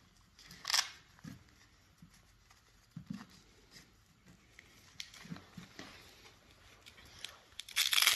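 Handling noise from a leather headband pad being fitted onto a headphone headband: soft rustling and light knocks, with a brief louder swish under a second in and another near the end.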